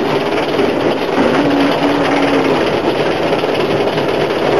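Steady running noise of a Sentinel steam locomotive, heard from inside its cab.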